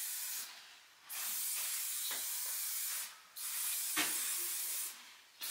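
Razzle Dazzle coat-shine spray being sprayed onto a horse's coat in long, steady hissing bursts of about one and a half to two seconds each, with short pauses between them.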